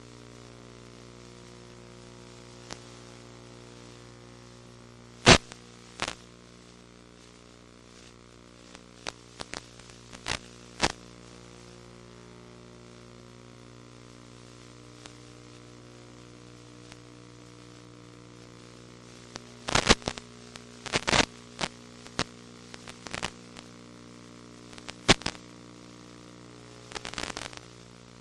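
Steady electrical hum with a faint hiss under it, broken by sharp static crackles: interference noise on the audio of an FPV video recording, not sound from the aircraft. The crackles come singly at first and in clusters later on.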